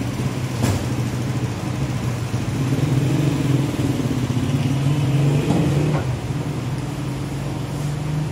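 Bakery machinery, such as the oven's burner or a motor, running with a steady low hum. A few light knocks come through, one about a second in and a couple more around six seconds in.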